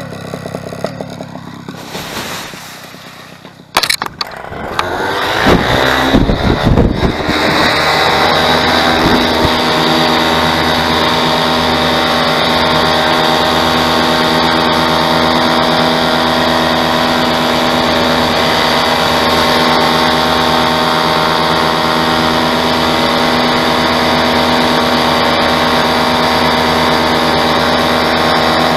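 Paramotor engine and propeller: quieter and uneven at first, with a few sharp knocks about four seconds in, then the engine throttles up over a few seconds with its pitch rising and runs steadily at full power, as for take-off and climb.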